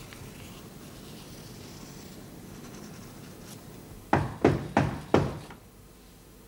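Four sharp knocks on a door in quick, even succession, about three a second, against quiet room tone.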